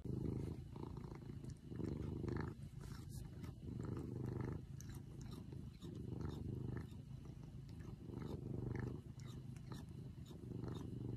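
Domestic cat purring loudly and continuously while its chin is scratched. The purr swells and fades with each breath, about once every second and a half.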